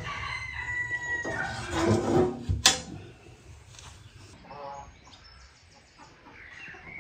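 A rooster crows once in a long held call. About two and a half seconds in, the stove's metal oven door is latched shut with a single sharp metal clack, the loudest sound here.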